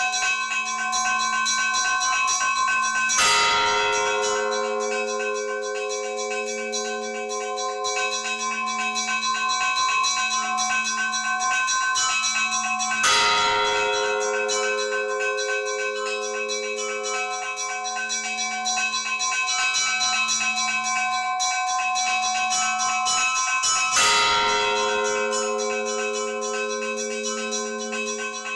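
Church bells ringing: smaller bells sounding continuously over a large bell struck three times, about ten seconds apart, each stroke ringing on and slowly dying away.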